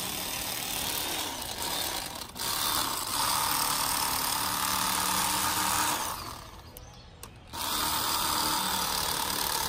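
Electric fillet knife running steadily as it cuts bream fillets. It stops about six seconds in and starts again about a second later.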